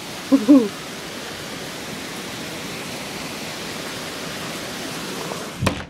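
Rain falling during a thunderstorm, a steady hiss that cuts off abruptly near the end. About half a second in there is a brief two-note voice-like sound.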